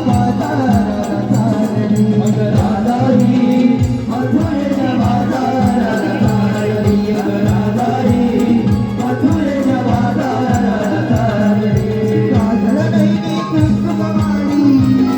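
Konkani Naman folk music: a singer's melodic line over a steady sustained drone and rhythmic jingling percussion.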